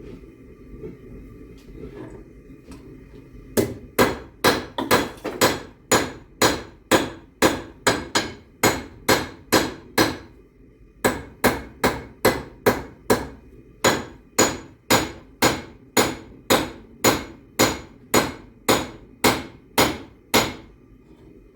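Hand hammer striking hot half-inch rebar on an anvil, about two ringing blows a second, starting a few seconds in and pausing briefly midway, as the bar is forged into a horseshoe shape. A low steady forge noise runs underneath.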